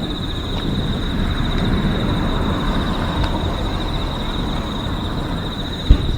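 Steady low rumble of nearby car noise, with a continuous high-pitched insect trill over it. A single sharp firework boom about six seconds in.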